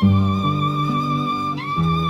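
Slow, soft instrumental music: a held melody note with a gentle vibrato over sustained low notes that change every half second or so, with a new melody note sliding in about a second and a half in.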